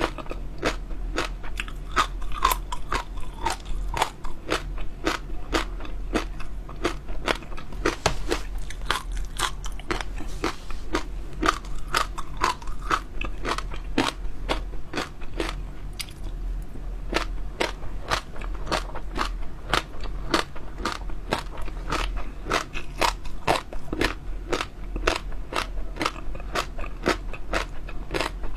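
Close-miked eating of chewy, crunchy jelly pearls: a dense run of small crackling, crunching clicks from biting and chewing, several a second.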